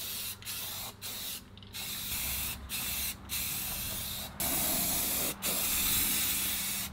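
Aerosol spray paint can hissing in a series of short bursts with brief breaks between them, the later bursts longer.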